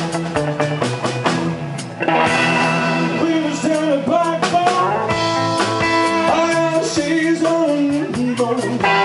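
Live rock and roll band playing: electric guitars and a drum kit, growing fuller and louder about two seconds in.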